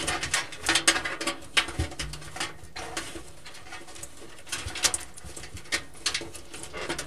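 DeepCool PF350 power supply's cable bundle and plastic connectors being pushed through the openings of a PC case: irregular rustling, scraping and clicking as the cables rub and knock against the case edges. The sound is busiest in the first couple of seconds.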